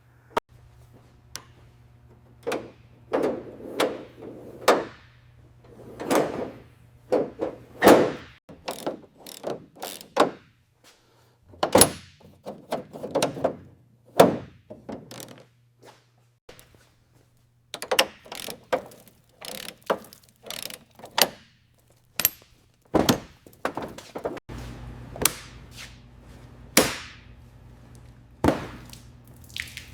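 Irregular knocks, thunks and clanks of hand tools and metal body parts as a truck bumper is unbolted and taken off, some sharp and ringing, some dull, over a faint steady low hum.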